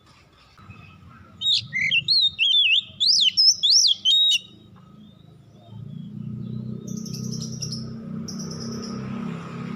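Oriental magpie-robin (kacer) singing a burst of rich, quickly varied whistled phrases, sweeping up and down, for about three seconds. After that the song stops and a steady low rumble rises in the background.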